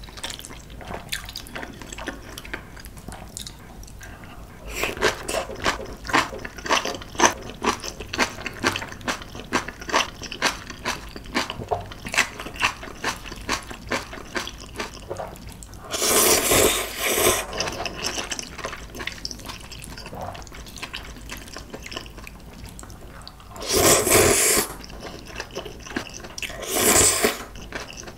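Close-miked eating: chewing of fresh cabbage kimchi, with many small crisp, wet clicks. Then three loud slurps of clam kalguksu noodles, one about halfway through and two close together near the end.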